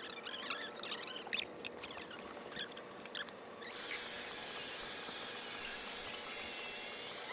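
Thin plastic of a deflated bubble ball squeaking and crinkling as it is handled. Then, about four seconds in, an air blower starts with a steady hiss and a faint high whine as it inflates the ball.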